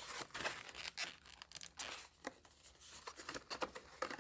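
Card-backed action-figure packaging being torn and crinkled open by hand: a faint, irregular run of rips and crackles.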